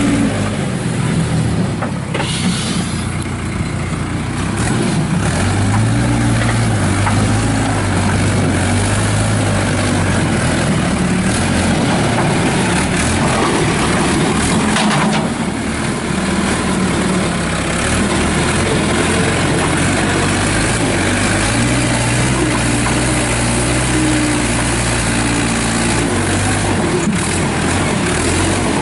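Case 580 Super E backhoe's Cummins diesel engine running steadily, its pitch rising for a few seconds at a time and settling back as the machine is worked. Sharp knocks come about two seconds in and again around the middle.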